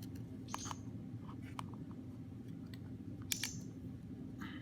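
Small plastic clicks and two short crackling scrapes, about half a second in and near three and a half seconds, as an iPod's front screen assembly is pressed down onto its housing and its clips are not yet seating fully. A steady low hum runs underneath.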